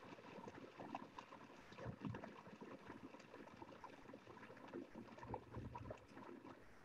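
NutraMilk nut processor grinding almonds, heard only faintly as a choppy crackle through Zoom's noise suppression, with a low motor hum coming through about five seconds in.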